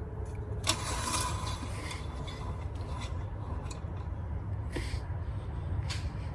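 Engine oil dipstick being handled: a sharp click about a second in, then a second or so of scraping and rubbing, and a couple of lighter clicks later, over a steady low rumble.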